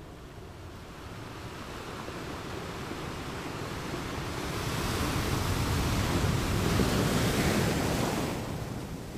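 Wind blowing across the microphone, a gust building about four seconds in and easing near the end.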